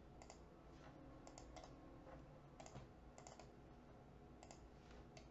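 Faint computer keyboard and mouse clicks: scattered single clicks and quick groups of two or three, as a value is typed and a point is set through a right-click menu.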